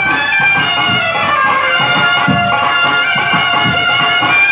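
Folk dance music: a melody of long held notes that step up and down in pitch, over a steady drum beat.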